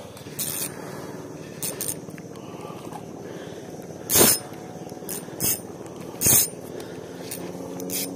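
Ryobi Smurf 1000 spinning reel cranked steadily on a lure retrieve, with a faint whir from its gears. Several short, loud rushes of noise break in, the loudest about four seconds in.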